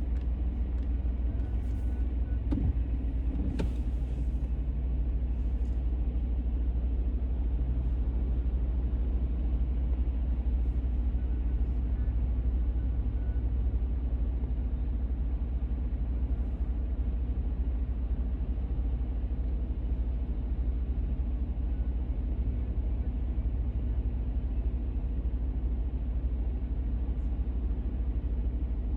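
Steady low rumble of a car driving on a wet road, heard from a dashcam inside the cabin. A few faint clicks come about two to four seconds in.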